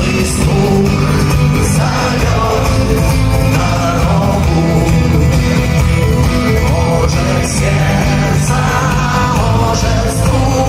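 Rock-and-roll style music with a singing voice and a strong, steady bass line.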